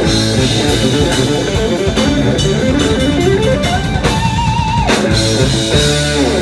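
Live rock trio of electric guitar, bass guitar and drum kit. The guitar climbs in a fast rising run to a held high note with vibrato, then the band comes in on a few heavy hits that close out the piece.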